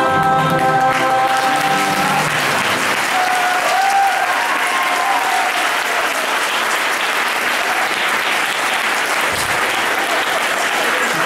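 Music ends about two seconds in, and an audience applauds steadily through the rest.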